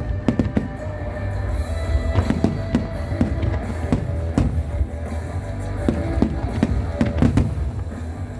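Aerial firework shells bursting again and again at irregular intervals, over loud music with held notes.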